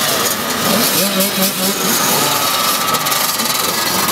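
Many youth motocross dirt bikes idling together, their overlapping engine notes wavering as riders blip the throttles.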